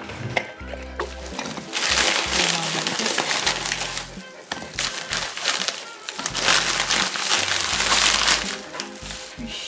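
A plastic bag rustling and crinkling loudly in two long stretches as raw chicken wings are shaken out of it into a stainless steel bowl, over background music.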